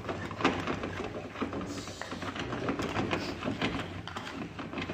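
Crab and pineapple broth boiling in a wide pan on a gas burner, with frequent clicks and scrapes of metal tongs against the pan.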